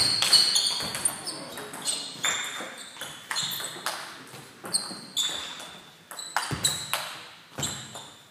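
Table tennis rally: the celluloid ball is struck back and forth, with sharp ticks of ball on rubber bats and on the table roughly every half second, each echoing in the sports hall.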